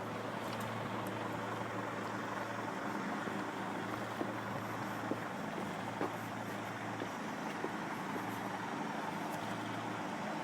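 Heavy trailer truck engine running slowly, a steady low hum, with a few faint ticks.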